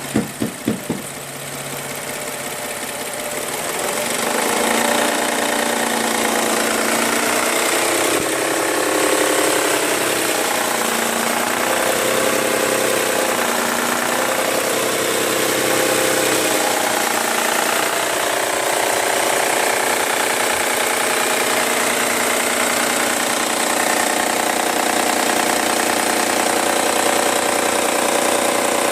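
An engine running with a knock. It starts with a few sharp bangs in the first second, grows louder over the next few seconds, then runs steadily.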